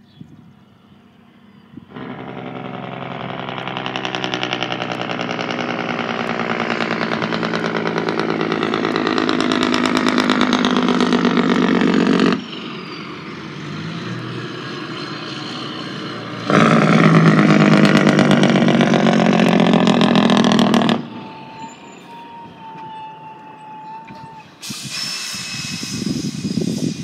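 Semi truck's engine compression brake (Jake brake) firing with a loud, rapid rattling blat that builds over about ten seconds and cuts off sharply, then comes on again for about four seconds and cuts off.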